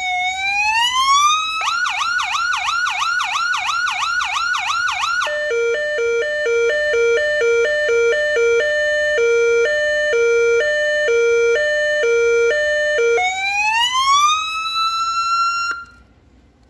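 Electronic emergency-vehicle siren cycling through its tones: a slow rising wail, a fast yelp of about three sweeps a second, an alternating two-note hi-lo pattern, then a rising wail again that cuts off suddenly near the end.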